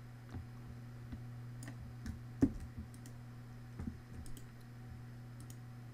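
A few scattered single clicks and taps from a computer mouse and keyboard, the loudest about two and a half seconds in, over a steady low hum.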